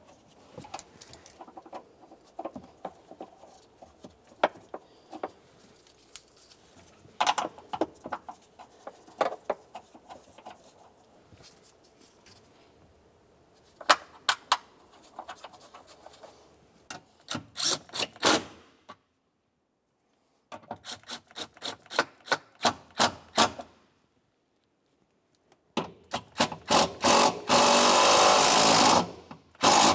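Faint rubbing and ticking as bolts are threaded by hand into plastic trim. Then come several runs of rapid ratchet clicking as 12 mm bolts are driven down with a socket. The loudest and densest run is near the end.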